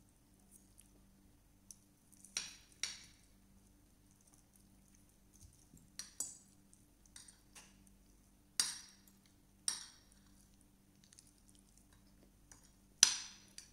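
Metal fork and spoon clinking and scraping against a plate while eating: a series of separate sharp clinks spread through, the loudest near the end.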